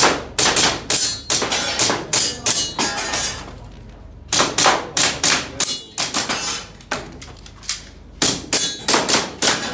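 Airsoft gas pistol firing quick strings of shots at a shooting stage, about two to three shots a second. There are three strings with pauses of about a second between them, and a light metallic ring after some of the hits.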